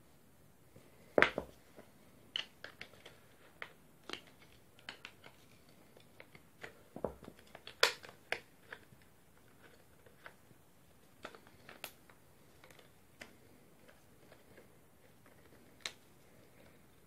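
Irregular clicks and knocks of plastic and metal parts of a Panasonic EY7880 cordless SDS drill being handled and pulled apart by hand. The loudest knocks come about a second in and again near eight seconds.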